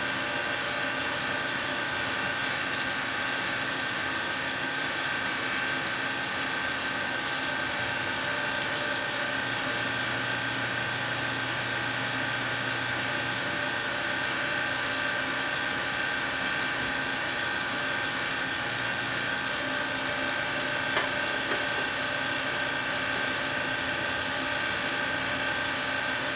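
Handheld Tesla coil buzzing and hissing steadily as it drives an electric discharge through low-pressure krypton in a glass bottle.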